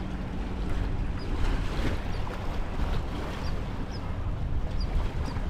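Wind and water at the shore, a steady rushing noise with a low rumble under it, and faint short high chirps every second or so.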